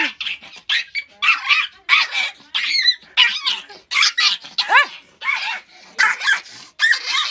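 Pomeranian puppy barking over and over, high-pitched yaps about two or three a second, some rising and falling in pitch like yelps.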